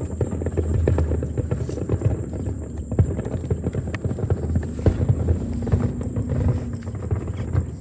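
Fireworks going off: a dense, irregular string of pops and bangs over a low rumble.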